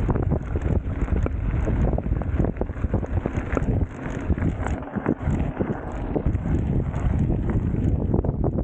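Wind buffeting a chest-mounted action camera's microphone as a mountain bike rolls over a gravel track, with steady tyre rumble and frequent sharp clicks and rattles from the bike.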